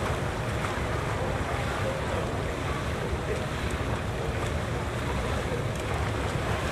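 Steady splashing and churning of pool water from water polo players swimming and tussling, with wind buffeting the microphone.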